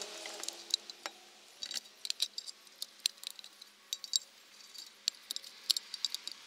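Irregular light metallic clicks and clinks of small wiring connectors and parts being handled and worked apart by hand.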